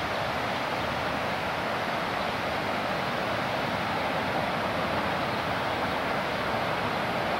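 Steady, even rush of the flooded Skunk River's water, with no breaks or gusts.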